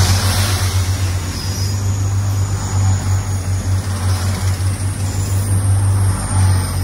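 Iarnród Éireann green diesel multiple-unit passing close along a platform at speed: a continuous rush of wheel and air noise with a steady low hum.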